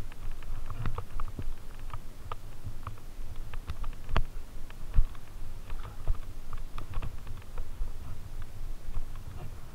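Fat bike riding a bumpy, leaf-covered dirt trail: irregular clicks and rattles from the bike and camera mount, with a low rumble from the tyres. Two sharper knocks come about four and five seconds in.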